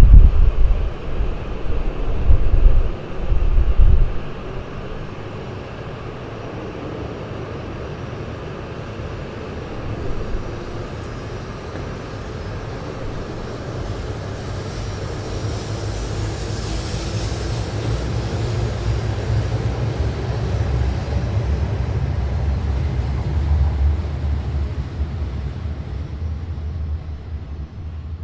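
H5 series Shinkansen running past at speed: a steady rushing noise that swells to its loudest about two-thirds of the way through, then eases off. Wind buffets the microphone with low thumps in the first few seconds.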